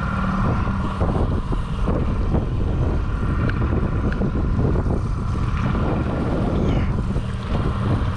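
Outboard motor running steadily at trolling speed, with wind buffeting the microphone and choppy water splashing against the hull.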